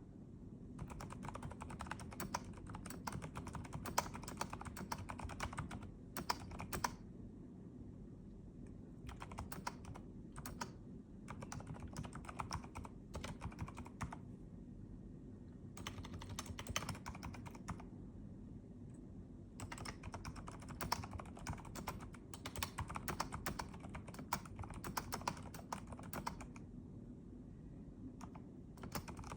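Keys being typed on a Keychron V6 mechanical keyboard: fast runs of key clicks lasting a few seconds each, broken by brief pauses.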